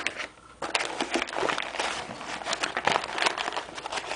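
Paper vacuum dust bag rustling and crinkling as it is pushed down and settled in the bag compartment: a dense run of irregular crackles and clicks that starts about half a second in.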